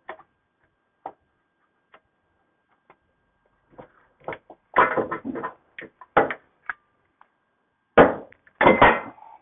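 Clunks and rattles as the air-suspension compressor is handled and pulled out: a few faint clicks at first, then a run of sharp knocks and clatter from about halfway, loudest in two hits near the end.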